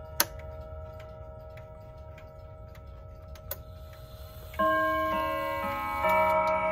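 Howard Miller Jenison wall clock ticking steadily while earlier chime notes ring on, with one sharp click shortly after the start. About four and a half seconds in, the clock's chimes begin a new phrase, several notes striking one after another and ringing together.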